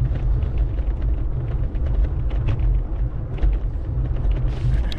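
Wind and road noise on a bike-mounted camera's microphone while cycling along a road: a steady, heavy low noise, with faint ticks and rattles throughout.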